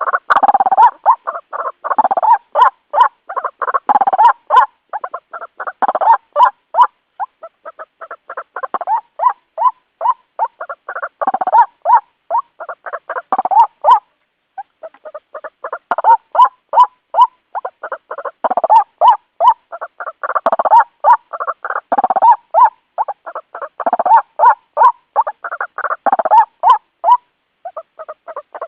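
White-breasted waterhen (ruak-ruak) calling: long runs of short repeated notes, a few a second, with a brief pause about halfway through.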